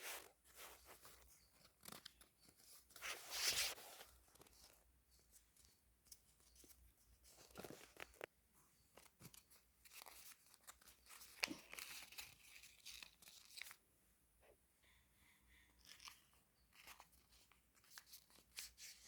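Paper being handled and folded by hand: faint, scattered rustles and crinkles, with a louder rustle about three and a half seconds in.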